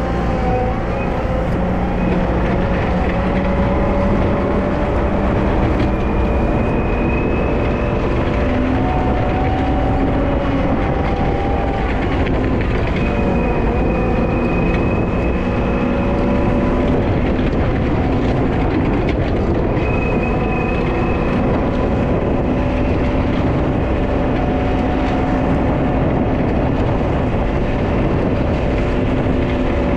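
Wheel loader's diesel engine running steadily under load while plowing snow, a dense rumble with several whining tones that shift in pitch every few seconds.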